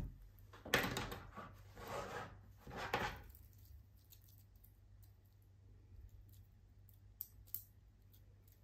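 Two-tone metal bracelet of a Maurice Lacroix Aikon watch jingling as the watch is handled and slipped onto the wrist, in three bursts over the first few seconds, then a few light clicks near the end.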